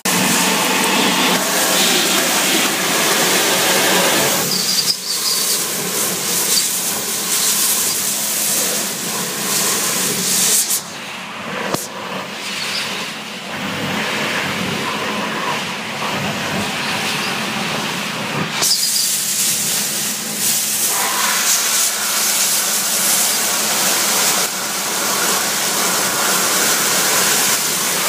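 Sewer vacuum hose nozzle sucking air: a loud, steady rushing hiss. Its sharpest, highest part drops away for several seconds midway, then returns.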